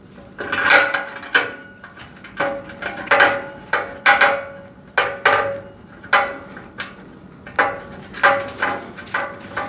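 Steel rack parts clinking and clanking as they are handled and fitted together during assembly: a string of irregular metallic knocks, each with a short ring.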